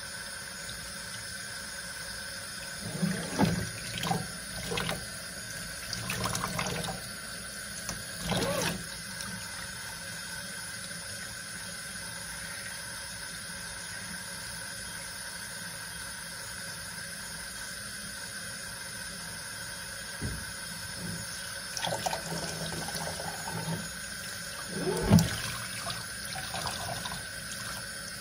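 Water running into a stainless steel kitchen sink as a puppy is rinsed by hand, a steady hiss with bouts of splashing a few seconds in and again near the end.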